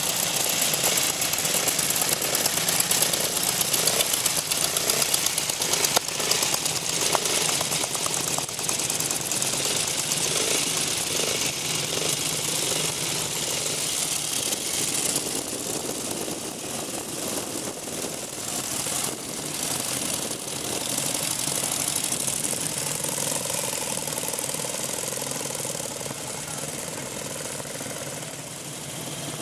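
Vintage motorcycle engines running and pulling away, a fast, even exhaust beat, louder in the first half and easing off later.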